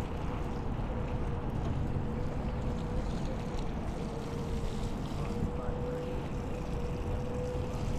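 Wind rushing over the microphone of a bike-mounted camera, mixed with mountain bike tyres rolling over wet pavement, all at a steady level, with a steady mid-pitched hum underneath.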